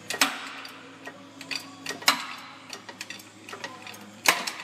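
Shop press forcing a seized wheel hub out of a Ford Explorer rear knuckle, with a run of small ticks and creaks. Three sharp, loud cracks come just after the start, about two seconds in and just after four seconds in, as the rusted hub breaks loose.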